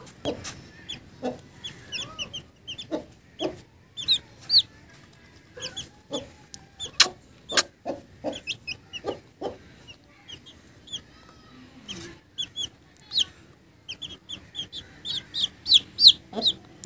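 Young chicks peeping: short high chirps, scattered at first and coming thick and fast near the end, with a few sharp clicks in between.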